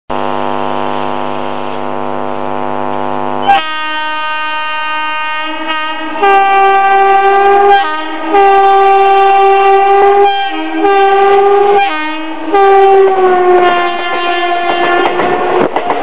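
Indian Railways WAP-4 electric locomotive sounding its horn: a long steady blast, then about five more blasts with short breaks, the last one dropping in pitch as the locomotive runs past. Wheels clatter on the rails near the end.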